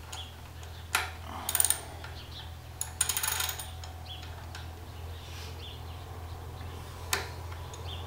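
Scattered metallic clicks and clinks of a 12 mm socket wrench and bolts as the front brake caliper bolts of a Triumph Scrambler motorcycle are undone, with a quick run of clicks about three seconds in. A steady low hum runs underneath.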